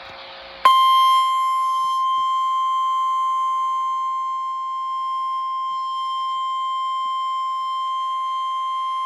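Emergency Alert System attention signal for a flash flood warning: the NOAA Weather Radio single 1050 Hz alarm tone, one steady, unbroken high beep. It cuts in sharply under a second in, after a brief hiss.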